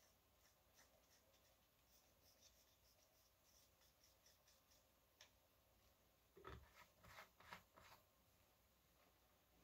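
Near silence: room tone with faint ticks, then a short run of soft handling clicks and rustles about six to eight seconds in.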